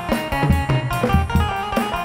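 Arabic pop song playing, with a drum kit beat, bass and guitar.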